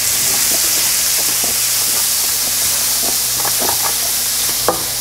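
Sliced leeks and shallot sizzling in hot butter in a stainless steel skillet, a steady hiss, while a wooden spatula stirs them with light scraping clicks. A sharper knock of the spatula on the pan comes near the end.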